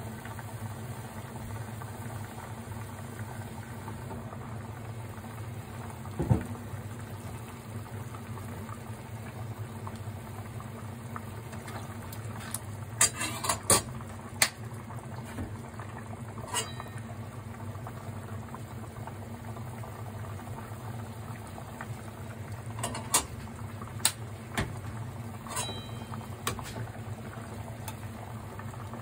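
Fish-head braising liquid bubbling steadily at a simmer in a stainless steel pot. A metal ladle clinks against the pot several times: once about six seconds in, in a cluster around the middle, and again several times near the end as the liquid is spooned over the sea bream head.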